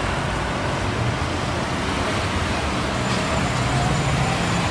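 A steady, even rush of background noise with no distinct events. A low hum comes up faintly near the end.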